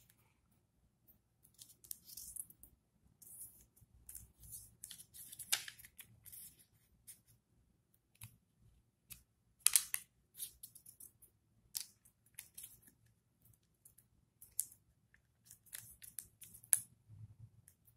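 A square of origami paper being folded and creased by hand: irregular crisp rustles and scrapes of paper, with sharper strokes as the creases are pressed flat, the loudest a little past halfway.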